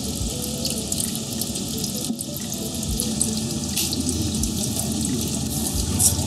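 Steady rush of water running down the back wall of a water-curtain spray booth, with a few soft knocks.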